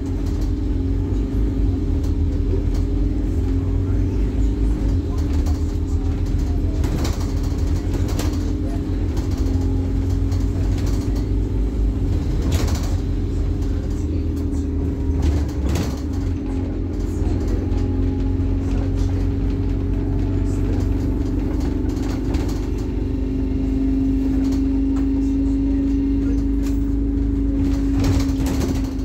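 Scania N270UD Omnicity double-decker bus's five-cylinder diesel engine running under way, heard inside the upper deck as a steady drone with a low rumble. A few knocks and rattles from the bus body come through now and then.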